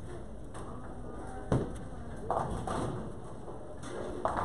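Bowling alley din: a sharp impact about one and a half seconds in, then a quick cluster of knocks and a little voice a second later, and more knocks near the end.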